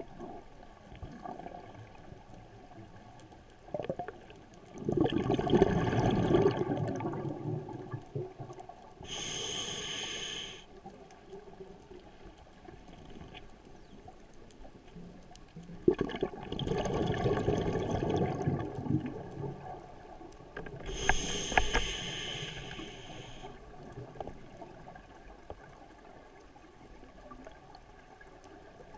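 Scuba diver breathing through a regulator, heard through an underwater camera housing: twice a long bubbling exhalation followed by a shorter hissing inhalation.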